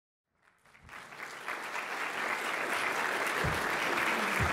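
Audience applauding, a dense patter of many hands clapping that fades in from silence over the first second or so and then holds steady, with a couple of low thumps near the end.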